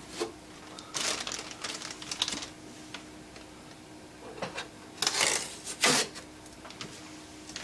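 Heavy-duty fiberglass-reinforced packing tape being peeled off the printer's plastic rear cover and handled: scattered clicks and rustles, then two loud crackling rips about five and six seconds in.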